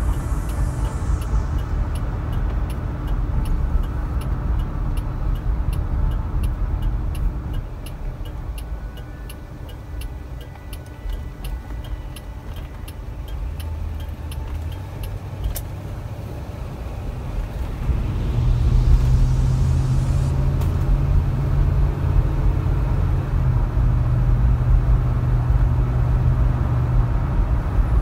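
Interior sound of a 1977 Lincoln Mark V's V8 on the move: a steady engine and road rumble that eases for a few seconds near the middle, then grows louder with a steady low drone in the last ten seconds. A light regular ticking, about twice a second, runs through the first half.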